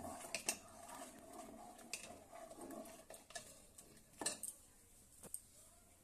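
A metal spoon stirring dal in an aluminium pressure cooker, scraping the pot and knocking against its rim and sides in a few sharp clinks.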